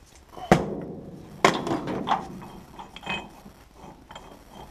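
Two sharp metal knocks about a second apart, each with a short ring, as a DeLorean transmission gear shaft is set down, followed by lighter clinks of metal parts.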